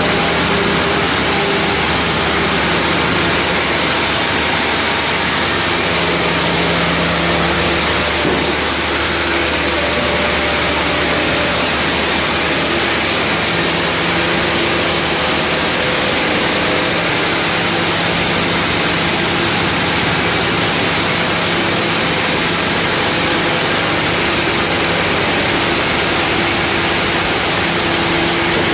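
Sawmill machinery running: a steady engine drone under a constant hiss, with a slight change in the drone about eight seconds in.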